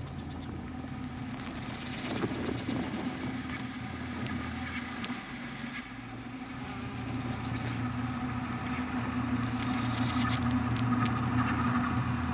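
Ambient drone soundtrack: a low steady hum with scattered crackles and clicks, growing louder over the second half.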